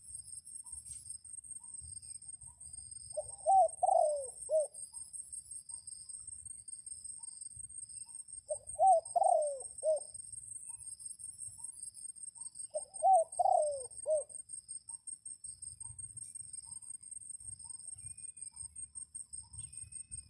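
Dove cooing: three short phrases of several low coos, about five seconds apart, over a steady high-pitched insect drone.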